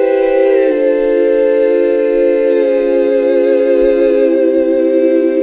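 Choir-like a cappella voices holding a sustained 'aah' chord, stepping to a new chord just under a second in and again about two and a half seconds in.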